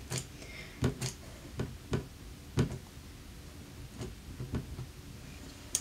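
Ink pad in its plastic case dabbed again and again onto a red rubber stamp to ink it: about eight soft, irregular taps, the later ones fainter. The pad is nearly dry and needs re-inking, so it is worked around the stamp to pick up ink from its wetter spots.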